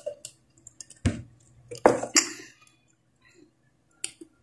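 A few separate clinks and knocks of dishes and cutlery being handled: a dull knock about a second in, two sharper clinks around the middle, and two quick light clinks near the end.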